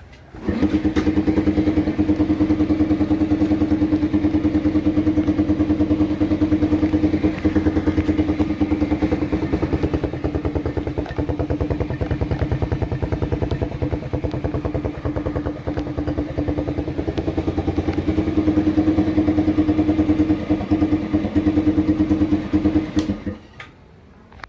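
Rusi Neptune 125 motorcycle engine running through a gutted ('kalkal') muffler with its pipe cut an inch short, giving a loud, rapid, even putter. It catches about half a second in and shuts off abruptly near the end.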